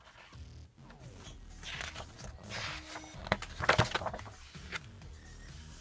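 Large glossy pages of a hardback art book being turned by hand, paper rustling and sliding, with the loudest page turn a little over three seconds in.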